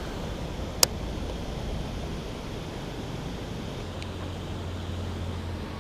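Steady rushing of river water, with wind on the microphone. A single sharp click a little under a second in, and a low steady hum joins about four seconds in.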